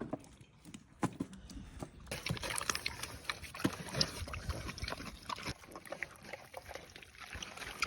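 Pig eating, with wet chewing, smacking and slurping in quick irregular clicks that get busier about two seconds in.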